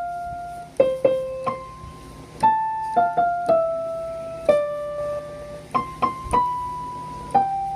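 Piano playing a slow, simple melody: single notes struck one after another, about one or two a second, each ringing and fading.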